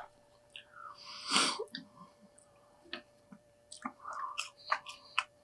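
Close-up chewing and mouth sounds of people eating burgers and fries: scattered short wet clicks and smacks, with one louder, noisier burst about a second and a half in.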